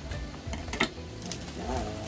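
Black plastic wrapping being handled on a boxed bicycle parking stand, rustling with a couple of sharp crinkles or clicks, over steady background music.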